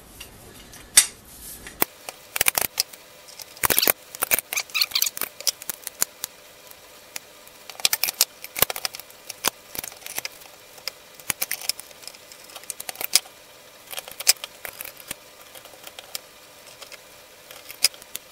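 Irregular metallic clicks and clinks as the steel chuck parts of a Skil 731 rotary hammer and a drill bit's shank are handled and fitted together by hand.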